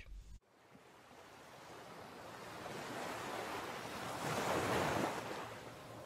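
Rushing wind-like noise that swells slowly, is loudest about four to five seconds in, then eases off.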